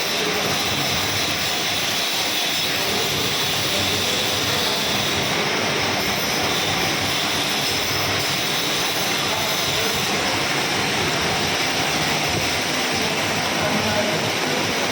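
Metal-turning lathe running steadily during a turning operation, a continuous even machine noise with a faint high whine.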